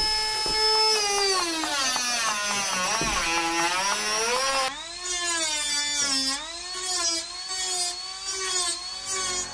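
Cordless rotary tool with a cut-off wheel cutting metal: a high motor whine that sags in pitch as the wheel bites and climbs back as the load eases, dipping again and again in the second half.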